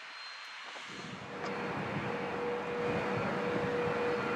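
NASA T-38 Talon jet trainer's twin J85 turbojets running on the runway. A steady tone over a rushing engine noise comes in about a second in and slowly grows louder.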